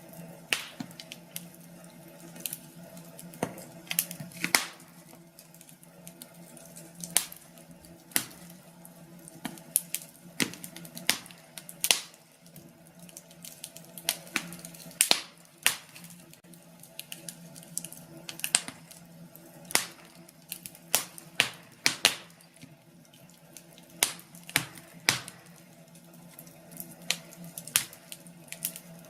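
Wood fire crackling in a fireplace: irregular sharp pops and snaps, some close together, over a faint steady hum.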